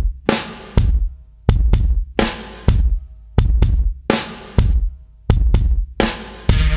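Intro music: a slow, steady pattern of heavy drum hits, each with a crashing tail, about one and a half a second. Near the end a held bass note and synth chords come in under the drums.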